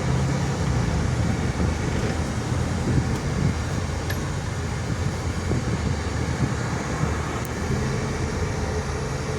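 Volkswagen Constellation 19.320 truck's diesel engine running with a steady low hum, along with road noise.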